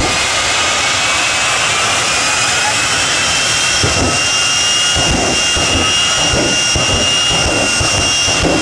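Jet dragster's jet engine running with a loud, steady rush and a high whine that creeps slightly upward in pitch.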